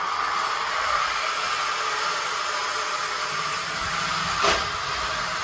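K'nex inverted roller coaster car rolling along its plastic tube track, a steady whirring rattle, with one sharp knock about four and a half seconds in.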